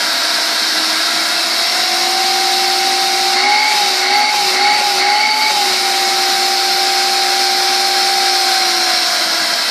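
VAX Air Cordless Lift upright vacuum cleaner running with a steady motor whine and airflow hiss, in boost mode with raised suction. The pitch rises slightly about a second in, wavers briefly in the middle, and drops a little near the end.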